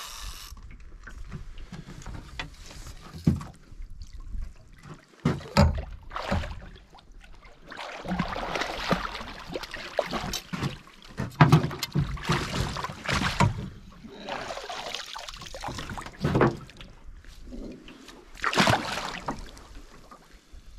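Irregular knocks, clunks and scraping on a small boat's hull and fittings, with bursts of rustling, as fishing gear is handled aboard.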